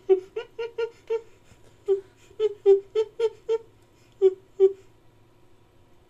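Ape-man creature sound effect built from chimpanzee recordings: quick runs of short pitched hoots, a few a second, stopping about five seconds in.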